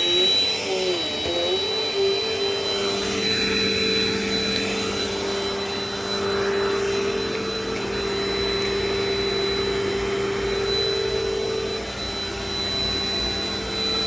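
Dirt Devil Dynamite vacuum cleaner running, a steady motor hum with a thin high whine. The pitch wavers briefly at first, then settles.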